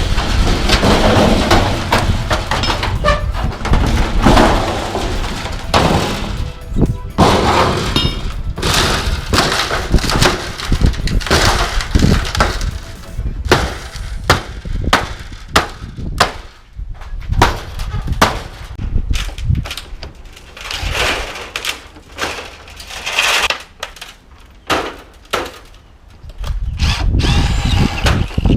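Aluminum porch framing and panels being pulled down and piled, with repeated clattering knocks and bangs of metal pieces striking one another and the ground.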